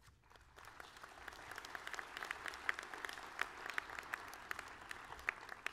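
An audience applauding, building up over the first second or two and then holding steady.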